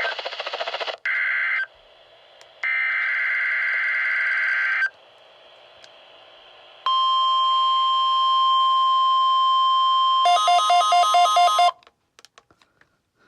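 Emergency Alert System signal over weather radio: two bursts of buzzy digital data tones, then a steady alert tone near 1 kHz held for about three seconds, then a fast pulsing beep pattern that cuts off sharply, followed by a few faint clicks.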